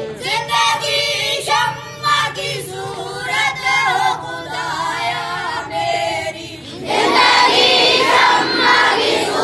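Schoolboys singing a prayer (dua) in lead-and-response: a boy's voice sings a line for about seven seconds, then the whole assembly of boys answers together, much louder.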